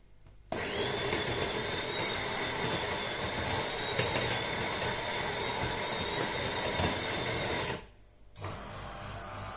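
De'Longhi Eletta Explore automatic coffee machine running: a loud, steady motor noise with a faint high whine starts suddenly about half a second in and cuts off near the end. After a brief pause a quieter steady hum follows.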